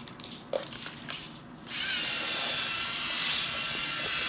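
A few light clicks and knocks, then the small electric motor of a homemade Lego Mindstorms robot vacuum switches on about a second and a half in and runs with a steady hiss and a faint high whine.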